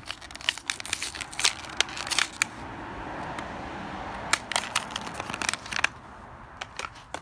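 Plastic blister packaging and its paper card crinkling and crackling as a tube of graphite lubricant is taken out, a quick run of clicks and crackles with a steadier rustle in the middle.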